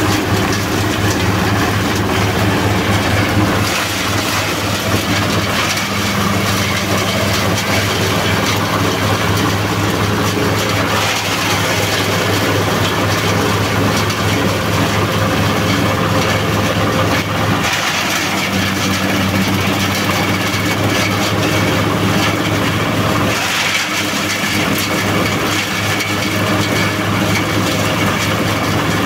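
Compost shredder driven by a small engine running steadily under load, its drum blades chopping green leafy branches, with a constant low hum and a noisier chopping hiss that swells and eases several times as material goes through.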